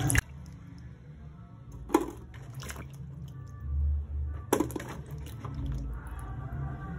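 Hands in a plastic bowl of water: sloshing as yam cubes are washed stops just after the start, then water splashing and dripping as the pieces are lifted out and set into an aluminium pot, with a sharp splash or knock about two seconds in and again about four and a half seconds in.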